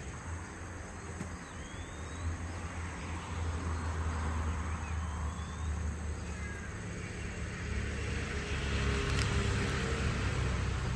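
Outdoor background: a steady low hum under an even hiss that swells near the end, with a few faint, short high chirps early on.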